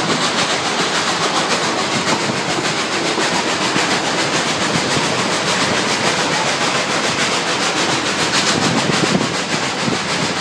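Durango & Silverton narrow-gauge steam train's cars rolling along the track with a loud, steady running noise.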